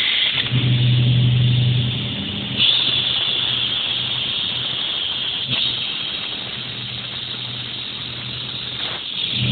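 Automatic hole-machining machine running its cycle: a steady motor hum with a high hiss of cutting over it. The hum is loudest at first; about two and a half seconds in the hiss steps up sharply, with a single tick a few seconds later.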